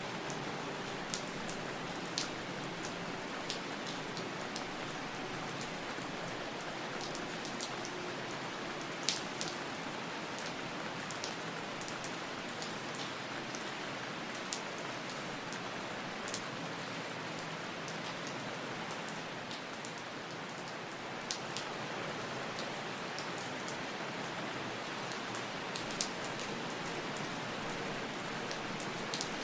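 Steady rain falling, with scattered sharp drops tapping on a hard surface.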